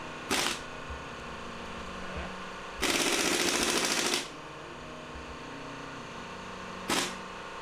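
Power tool spinning engine bolts out in three bursts of rapid rattling: two short ones and a longer one of about a second and a half in the middle.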